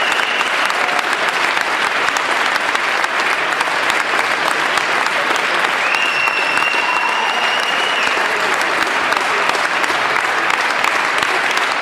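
Audience applauding steadily, with a long, high, steady whistle from the crowd about six seconds in that lasts about two seconds.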